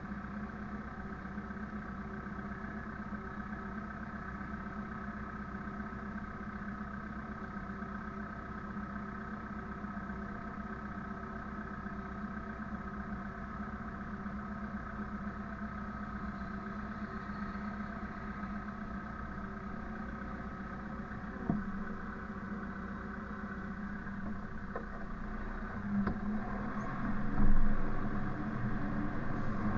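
Tractor engine running steadily at a constant speed. A single knock comes about two-thirds of the way through, and louder clunks near the end.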